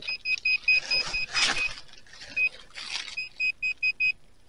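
Handheld metal detector beeping in quick runs of short, same-pitched beeps, about five a second, sounding over a buried metal target, with brief rustling between the runs.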